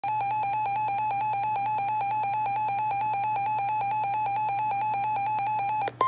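Reecom weather alert radio sounding its alarm for a severe thunderstorm warning: a rapid, evenly pulsed beeping tone, about seven beeps a second, that stops just before the end.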